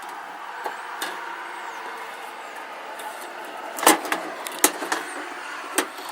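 Steady outdoor background noise, with a few sharp knocks and clacks from handling hard parts, the loudest about four seconds in and others a little later and near the end.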